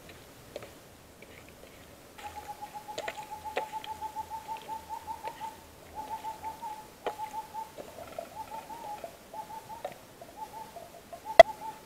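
A bird calling in long runs of quick repeated notes at one steady pitch, starting about two seconds in, with light clicks of dishes and food being handled and one sharp knock near the end.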